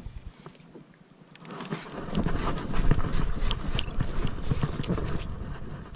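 Irregular clicking and knocking of rod, reel and gear being handled in a plastic kayak, starting about a second and a half in, over low wind rumble on the microphone.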